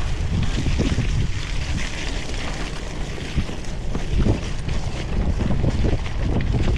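Wind buffeting the microphone while a cyclocross bike rolls fast over rough, rutted dirt, with a steady tyre rumble and frequent irregular knocks and rattles as the bike jolts over the bumps.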